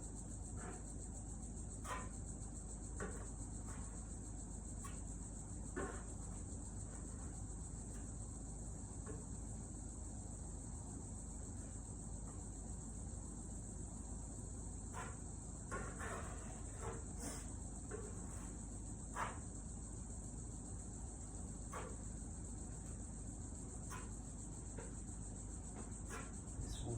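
Steady high-pitched chirring of insects on a hot day, with a dozen short, scattered scrapes and clicks, fitting body filler being spread onto a car panel with a spreader.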